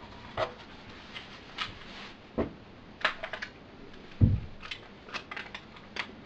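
Scattered light plastic clicks and taps from handling a small USB hub with a flash drive just plugged in, with two duller knocks about two and a half and four seconds in.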